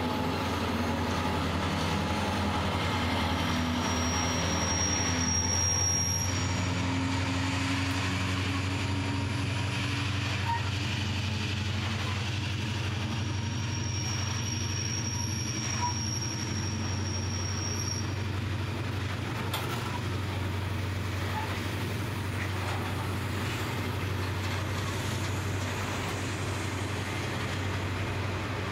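A freight train's loaded grain hopper wagons rolling past at low speed over a steady low rumble. A thin, high wheel squeal rises twice: about four seconds in, and again from about fourteen to eighteen seconds in.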